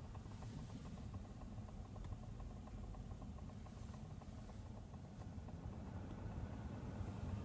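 Heater blower fan of a 2017 Kia Rio running with a rapid, regular ticking knock over a low steady hum; the knock is a fault in the fan.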